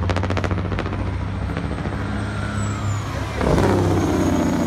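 Semi truck's engine brake (Jake brake) chattering as the truck comes down the track. The sound is loudest from about three and a half seconds in as the truck passes, its pitch dropping as it goes by.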